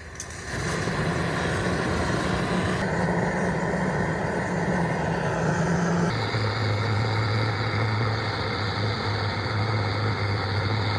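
A motor running steadily with a loud low hum, which drops to a lower pitch about six seconds in and then stops abruptly.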